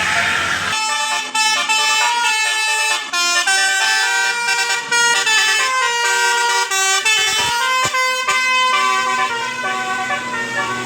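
Bus musical air horn of the Basuri 'telolet' type, playing a quick tune of short notes that jump in pitch every fraction of a second. It sets in just under a second in, after a brief hiss.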